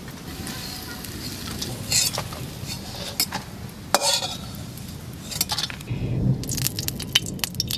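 Metal spatula scraping and clinking against a metal kadai as fried egg fritters are lifted out into a steel plate, over a low sizzle of hot oil. Near the end, oil is poured into the pan and starts to crackle.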